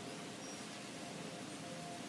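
Several distant outdoor civil-defence warning sirens sounding a steady tone, faint and swelling and fading as the rotating sirens turn.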